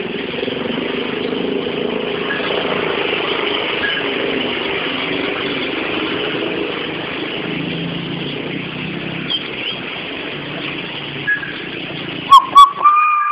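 Steady running-engine noise of motor traffic, with a few faint short chirps. Near the end come two sharp clicks and a brief whistle-like note that rises slightly and then falls.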